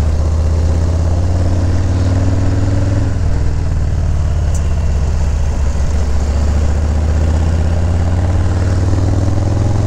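Harley-Davidson FXLRS motorcycle's V-twin engine running steadily.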